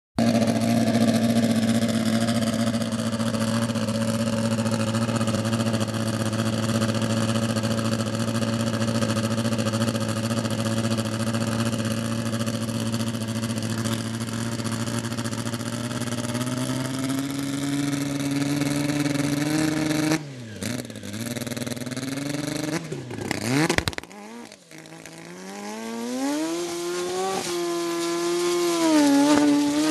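ATV engine running at a steady speed, then revving higher. About two-thirds of the way in, the engine speed drops and swings sharply down and up twice, then climbs again in steps near the end.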